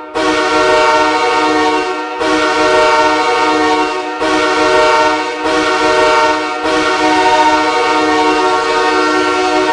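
Ice hockey goal horn sounding in five blasts. The first two last about two seconds each, the next two are shorter, and the fifth is held for about four seconds.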